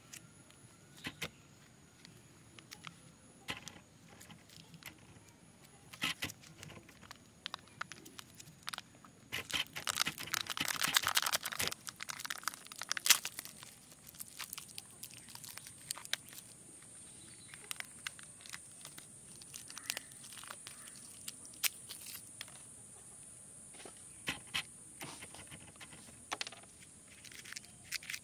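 Crinkling and crackling of a shiny foil lid being peeled off a small plastic chocolate cup, with a dense stretch of crackling and tearing about ten to thirteen seconds in and a sharp click just after. Otherwise there are scattered crackles and taps of fingers handling the plastic cup.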